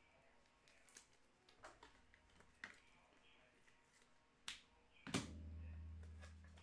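Light clicks and taps from handling trading cards at a desk, then about five seconds in a louder knock followed by a low hum that fades away.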